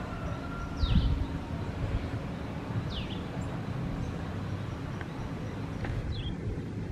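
Two short, high-pitched calls that each fall quickly in pitch, about two seconds apart, and a shorter call near the end, from a bird or small monkey. Under them is a low rumble with a thump about a second in.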